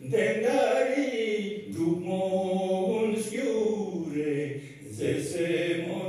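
An older man singing a Ladakhi song solo, unaccompanied, into a microphone: long held notes with a wavering, chant-like melody, with a short breath pause about five seconds in.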